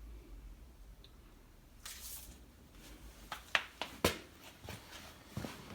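A short hiss about two seconds in, then a run of sharp clicks and light knocks, the loudest about three and a half and four seconds in.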